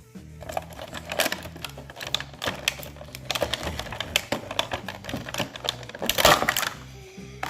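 Packaging wrapper being torn and pulled open by hand, a rapid run of crackles and clicks with a louder, longer rip about six seconds in.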